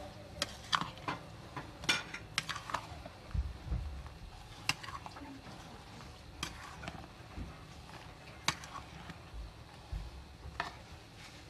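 A spoon stirring chopped fruit in whipped cream in a large bowl, its edge clinking and knocking against the bowl at irregular moments, several close together near the start and then one every second or two.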